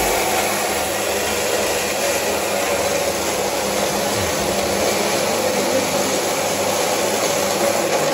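Electric mixer grinder with a steel jar running steadily at speed, grinding soaked rice and dal into dosa batter.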